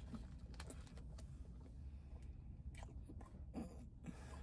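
Faint close-up chewing of a fried chicken and glazed-donut sandwich, with scattered small wet mouth clicks, and foil wrapper crinkling in short rustles near the end as the sandwich is lifted.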